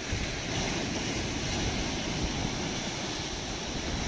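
Steady sea surf washing onto a sandy beach, with wind buffeting the microphone.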